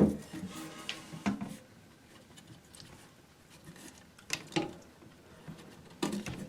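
Scattered clicks and knocks as the old rubber toilet flapper is worked off the overflow tube's pegs inside the porcelain tank: one sharp knock at the start, a couple more about a second in, two more past the middle and one near the end.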